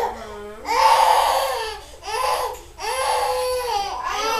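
Baby crying in a run of four high-pitched wails, about one a second.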